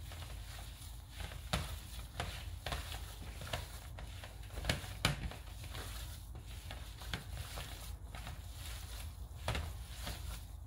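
Ground beef and flour being kneaded by hand in disposable gloves in a glass bowl: irregular soft squishes and clicks, the sharpest about halfway through, over a steady low hum.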